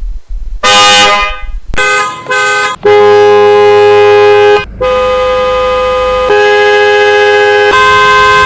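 Genuine Toyota OEM car horn made by Maruko Keihoki, honking loudly: one blast, two short toots, then long steady blasts for the rest of the time, the pitch shifting from one blast to the next.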